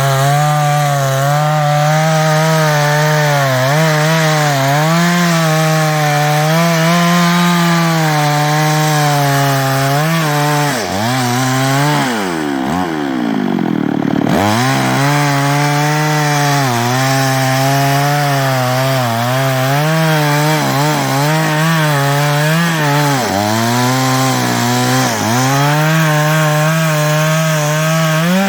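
Chinese-made New West 588 two-stroke chainsaw cutting into a teak trunk at high revs, its pitch wavering as the chain bites. About halfway through the engine speed drops sharply and then climbs straight back up.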